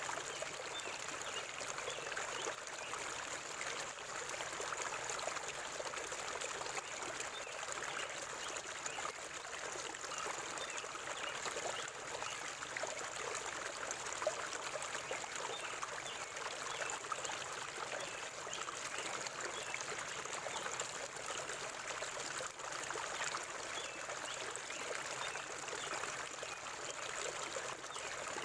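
Shallow river water flowing and babbling over stones in a steady, unbroken rush, with a steady high hiss above it.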